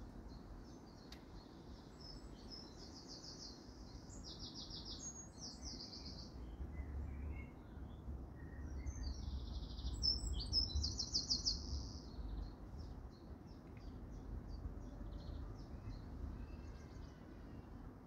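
Small garden songbirds singing: two runs of quick, high trilled notes, one a few seconds in and one around the middle, then scattered short chirps. A low rumble sits underneath through the middle stretch.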